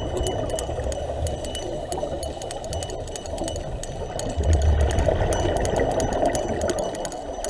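Underwater ambience: a steady, muffled water noise with many faint fine clicks, and a brief low rumble of a scuba diver's exhaled bubbles about four and a half seconds in.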